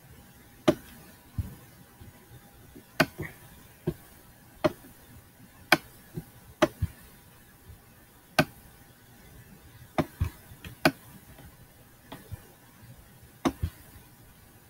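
Sharp, irregular clicks and taps from working a computer's pointing device while picking colours and painting in a digital art program, some in quick pairs, spread unevenly over the whole stretch.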